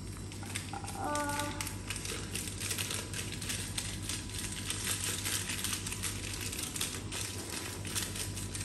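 Foil coffee-powder sachet crinkling and rustling in dense, irregular clicks as it is squeezed and shaken over a blender jug. There is also a short pitched sound about a second in.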